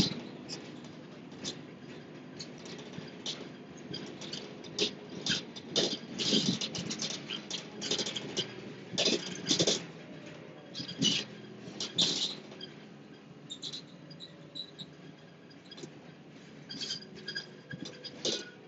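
Steady low rumble of a moving vehicle heard from inside, with irregular light clicks, taps and scratchy rattles coming and going, busiest in the middle.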